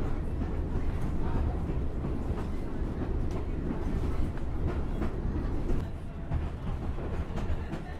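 Diesel railmotor standing with its engine running, a loud low rumble. About six seconds in this gives way to the quieter ride on board the moving railcar, with faint clicks of the wheels over rail joints.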